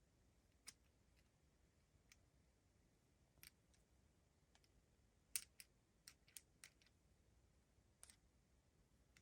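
Faint, scattered sharp clicks and light crackles from a Kinder Surprise egg and its packaging being handled. They are sparse at first, with a quick cluster a little past halfway, the loudest there.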